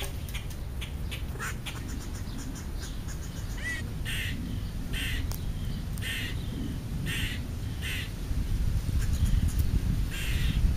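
Crows cawing: a run of short, harsh caws about once a second starting about four seconds in, and one more near the end, over a low rumble.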